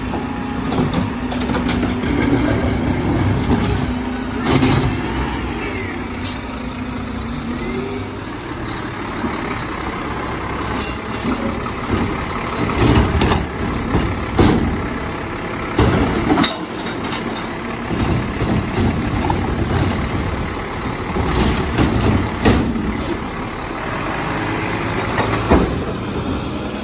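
Automated side-loader garbage truck working a recycling pickup: the engine and hydraulics hold a steady, pitched hum for the first several seconds while the arm lifts and empties the cart, then a series of irregular bangs and knocks as the carts are dumped and set back down. Near the end the truck drives off.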